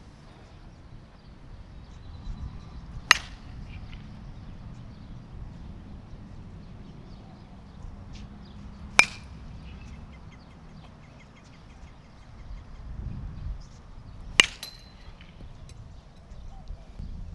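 Three separate batted-ball hits about six seconds apart: a metal baseball bat striking a pitched ball, each a sharp ping with a short ring.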